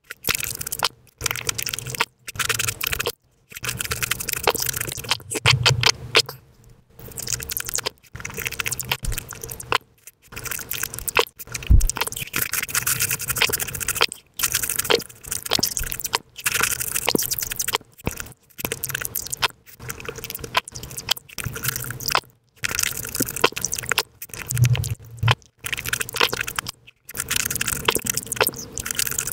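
Close-miked eating sounds: a person biting and chewing juicy fruit and soft cake, with wet squishing and many quick crunchy clicks, played back sped up. The sound comes in short stretches broken by abrupt silent gaps.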